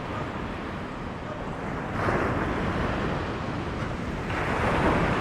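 Surf rushing onto the beach, mixed with wind buffeting the microphone. The rush steps up abruptly about two seconds in and again near the end.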